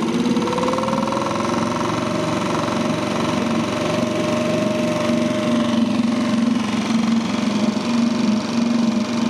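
Small outboard motor of an inflatable dinghy running under way. Its pitch rises over the first couple of seconds, then holds steady.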